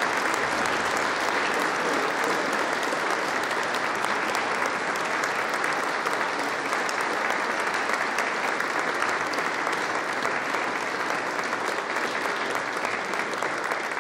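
Large audience applauding steadily in a hall, sustained clapping with no let-up.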